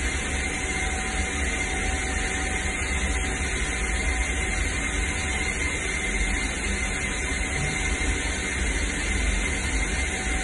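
Steady machine drone: a low rumble under an even hiss, with a thin steady whine.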